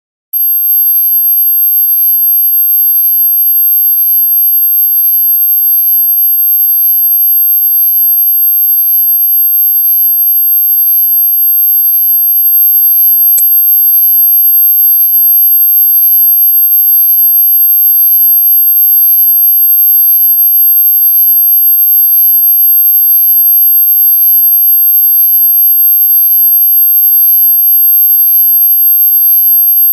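A steady, piercing high-frequency electronic tone: one very high, thin whine held without change, with fainter steady tones beneath it. A faint click is heard about halfway through.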